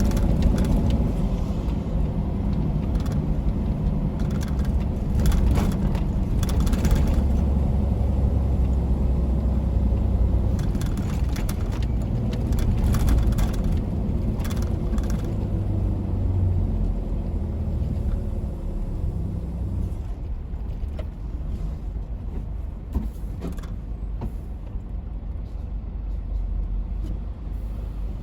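Tractor-trailer truck under way: a steady low engine and road rumble, with scattered sharp clicks and rattles. It drops a little in level about two-thirds of the way through.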